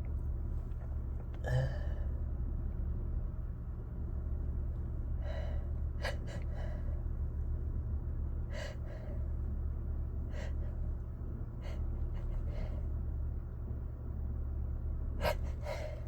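A person's sharp, gasping in-breaths and sniffs between sneezes, a handful of short strokes a second or more apart, as they work up to the next induced sneeze. The strokes grow stronger near the end. A steady low hum inside the car runs underneath.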